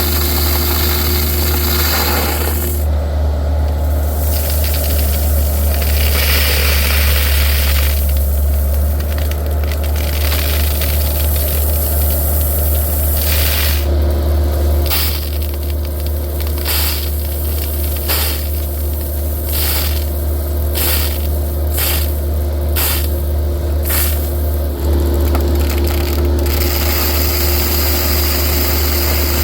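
Excavator engine running steadily under repeated bursts of gravel rattling and scraping as stone is spread to fill a leach-line trench.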